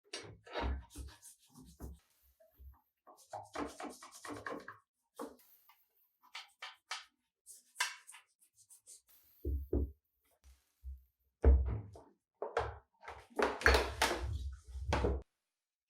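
Irregular knocks, thuds and short scrapes of heavy cast-iron mill parts being handled and set down on a workbench, coming thickest near the end.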